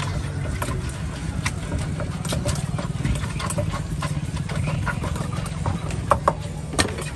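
Wooden pestle knocking irregularly in a wooden mortar as green papaya salad is pounded and stirred with a spoon, a few sharper knocks near the end. A steady low rumble runs underneath.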